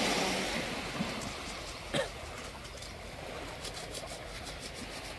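Faint outdoor noise of the sea and wind below a cliff, louder in the first second and then settling to a low, steady hush. A short, sharp click about two seconds in.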